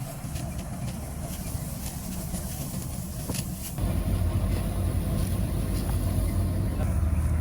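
An engine running steadily with a low hum, with a few faint ticks in the first half. About four seconds in it becomes louder and fuller.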